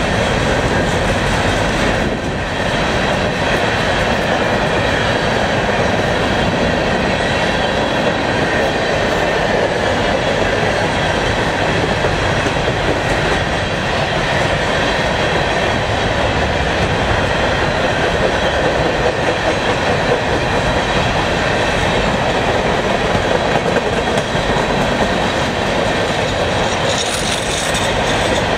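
Freight train of Herzog open-top hopper cars rolling steadily past, a continuous loud rumble of steel wheels on rail.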